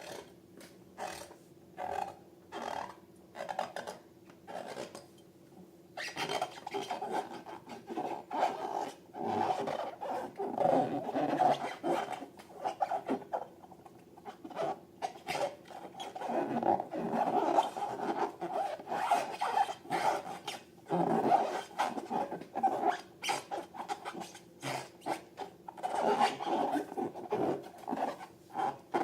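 Long rubber balloons being handled: short squeaks and rubs at first, then continuous squeaky rubbing and stretching of the rubber. It ends in a quick run of short ticks.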